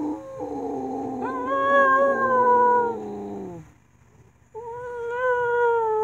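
Dog howling: two long howls with a short break between them, the second one sliding down in pitch as it ends.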